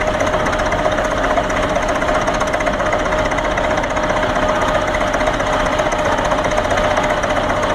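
Russell tractor's engine running steadily under load on a prony brake, with a fast, even mechanical beat and a steady high tone over it.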